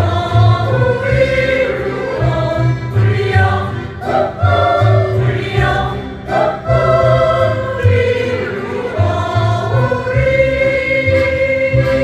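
A choir singing together over instrumental accompaniment with a steady beat.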